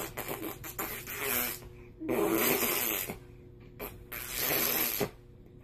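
Three short breathy mouth noises from a man and a baby, with quiet gaps between them.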